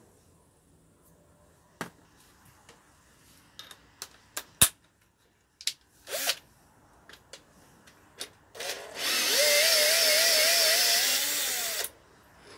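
Scattered light clicks and one sharp metallic clank of tools and parts. Then a cordless drill/driver with a socket runs for about three seconds, its motor pitch wavering as it spins out a bolt from the engine's cylinder head, and it stops abruptly.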